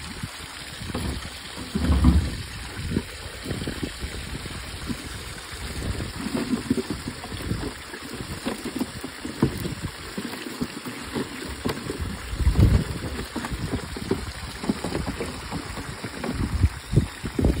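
Water pouring and splashing out of a fish-transport trailer's tank onto the ground as live fish are netted out into plastic crates. Irregular low thumps come and go, the strongest about two seconds in, near the middle, and at the very end.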